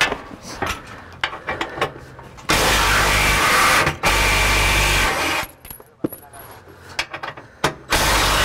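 DeWalt 20V cordless impact driver hammering bolts loose in three bursts of about a second each, the first two close together from about two and a half seconds in and the third near the end. Light clicks and knocks of the socket and hands come before and between the bursts.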